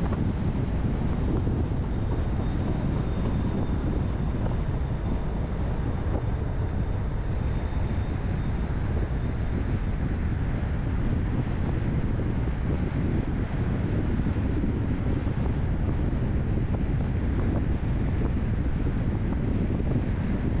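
Steady low rumble of a car on the move: road and engine noise, with a faint thin whine for a few seconds near the start.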